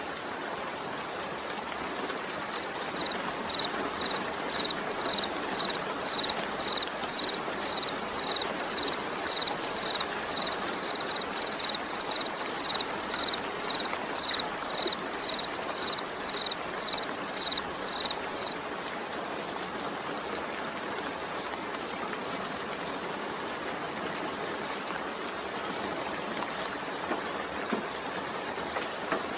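Steady rain falling. Over it, a high, short chirp repeats about twice a second for roughly the first fifteen seconds, then stops.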